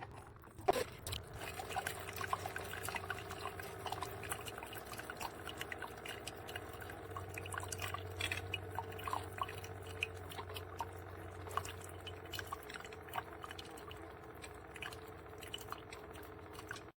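Cuisinart SS-16 coffee maker dripping and gurgling with water in small irregular drops and pops, over a faint steady low hum.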